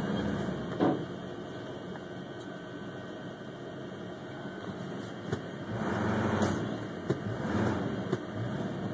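Tow truck's engine idling, heard from inside the cab, with a sharp knock about a second in and a few clicks near the end; it grows louder for a couple of seconds past the middle.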